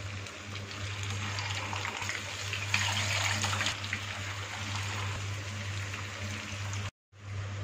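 Skewered chicken boti kababs frying in shallow oil in a pan, a steady sizzle that is loudest about three seconds in as more skewers go into the oil. A low steady hum runs underneath, and the sound cuts out briefly near the end.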